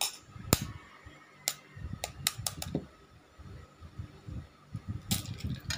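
Eggs tapped against the rim of a bowl to crack them open: a series of sharp taps, a quick cluster of them about two seconds in and another near the end.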